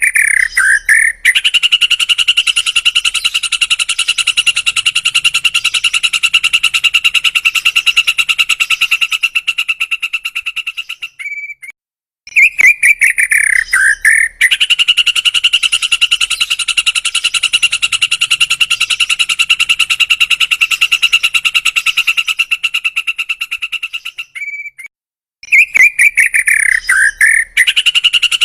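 White-rumped shama (murai batu) singing its rapid rattling 'dor' song: a short sweeping phrase, then a long fast pulsing trill held for about nine seconds. The pattern repeats three times with brief pauses between.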